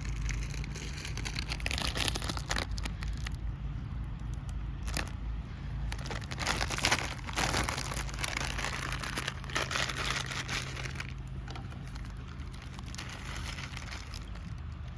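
Irregular crinkling and rustling handling noises, densest in the first two-thirds, over a steady low hum.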